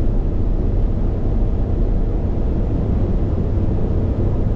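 Steady low rumble of a car driving along a motorway, heard from inside the cabin: engine and road noise.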